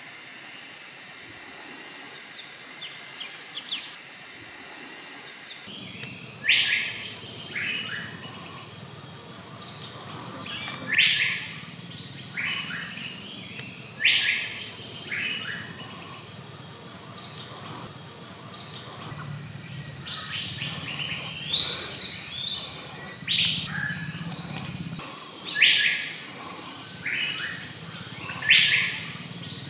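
Forest birds and insects: a high, rapidly pulsing insect trill runs steadily, while a bird gives loud calls every few seconds, each followed by a few shorter ones. Both become much louder about six seconds in.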